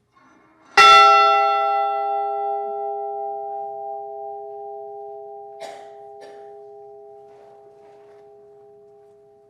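A bell struck once, about a second in, then ringing on with a long, slowly fading hum: a memorial toll for one lost crewman. Two faint clicks near the middle.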